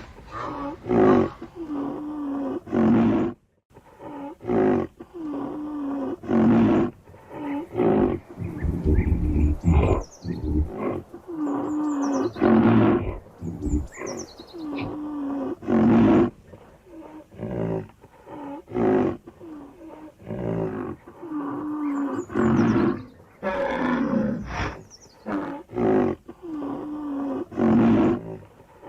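Rhinoceros calling over and over: short deep calls, one every second or two. A few high chirps sound in between, near the middle and again later.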